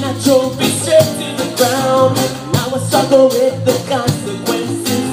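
Live reggae band playing: a man singing over strummed acoustic guitars, a drum kit and hand drums keeping a steady beat.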